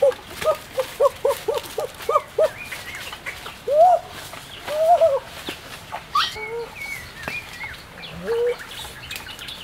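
Duck quacking: a quick run of short quacks, about three a second, then a few longer drawn-out calls and scattered calls. Twigs and dry leaves crackle faintly underfoot.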